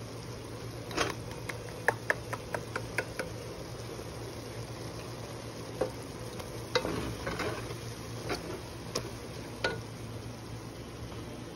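Wooden spatula stirring kangkong and ground pork in a nonstick pot as oyster sauce is mixed in, with two spells of quick clicks and scrapes against the pot, one about a second in and another past the middle, over a soft sizzle of the stir-fry.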